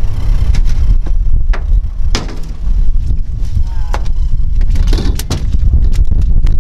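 Steady low rumble of wind on the microphone and the boat. Over it come sharp knocks and slaps as a freshly landed Chinook salmon flops in the landing net on the boat's deck, several in quick succession near the end.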